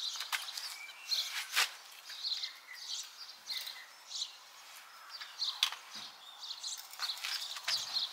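Songbirds chirping over and over, with two sharp knocks about four seconds apart from work on a folding camper trailer.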